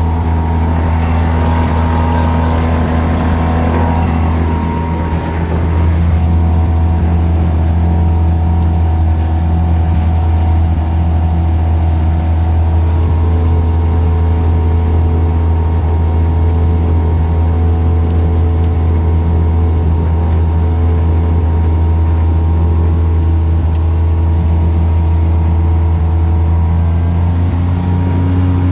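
Mazda 13B two-rotor rotary aircraft engine and propeller running steadily at about 2,400 rpm, heard from inside the cockpit. Its pitch steps up near the end as the revs climb toward 2,650 rpm.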